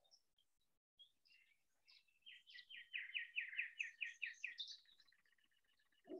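Faint songbird song: scattered chirps, then a run of about ten quick down-slurred notes, about four a second, ending in a higher flourish.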